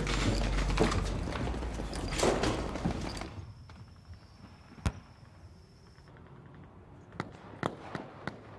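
Shuffling and jostling of a crowd of soldiers over a low rumble, which cuts off abruptly about three seconds in. After that the room is quiet apart from one sharp click and a few light knocks or steps near the end.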